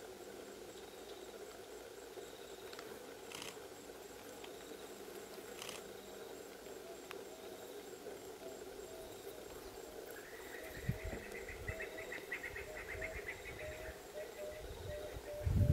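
Faint outdoor bush ambience with a steady low hum. About ten seconds in, an insect trills rapidly for some four seconds, and a few low thumps come near the end.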